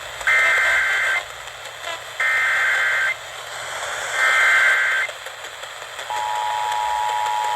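Emergency Alert System activation: three bursts of SAME header data tones, each about a second long, over radio hiss. About six seconds in, the steady two-tone EAS attention signal starts. It announces a severe thunderstorm warning.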